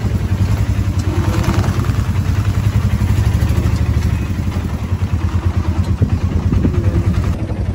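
Auto-rickshaw engine running with a steady, fast low chugging, heard from on board the moving vehicle.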